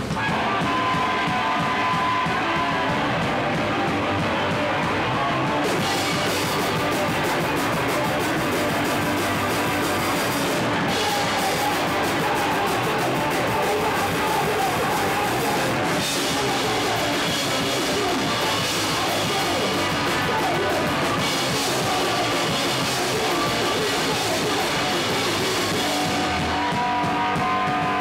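Live rock band playing loudly with electric guitars and a drum kit, heard through a single camera microphone in a small room.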